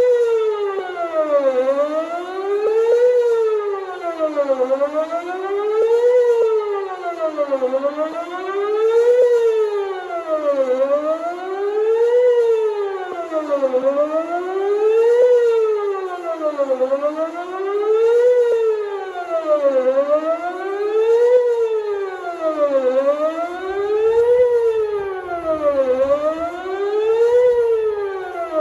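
Outdoor tornado warning siren sounding its wail for a test of the warning system. The tone rises and falls evenly, about once every three seconds.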